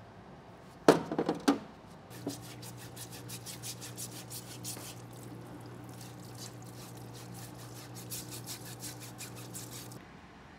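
A few loud metal clunks in a parts-washer tub. Then the washer's pump starts with a steady electric hum, and solvent splashes while a brush rapidly scrubs the steel plate and brass mesh screen of an old hydraulic-tank filter. It all cuts off sharply near the end.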